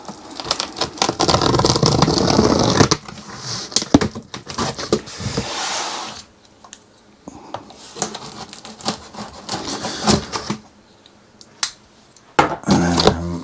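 Knife blade slitting the packing-tape seals along the top of a cardboard box: one long scraping cut in the first three seconds, then shorter scrapes and clicks with quiet gaps, and a louder burst near the end.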